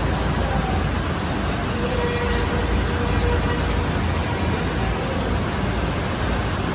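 Diesel engines of two backhoe loaders running steadily under load as they hoist a heavy steel hot-press frame: a continuous low rumble.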